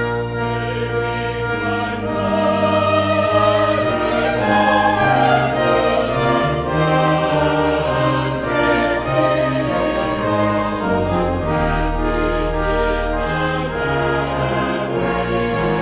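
Church choir singing a choral arrangement, accompanied by organ with long held bass notes.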